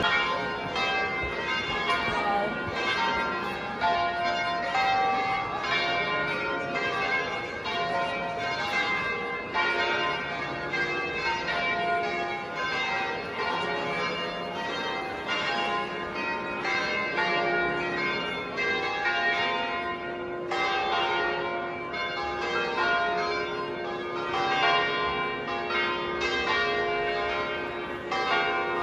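Church bells ringing: several bells struck one after another, their tones overlapping and ringing on.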